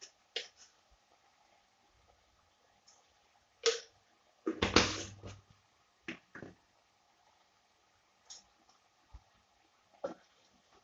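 Salt being added to raw chicken pieces in a clay pot: a few light clicks and taps of kitchen utensils, with one louder short noise just under five seconds in, and a tap near the end as a spoon goes into the pot.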